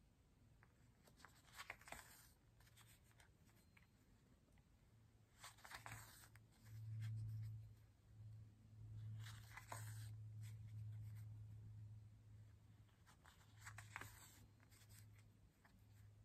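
Faint rasp of an embroidery needle and stranded embroidery floss being drawn through fabric, one pull about every four seconds, four in all, over a faint steady low hum.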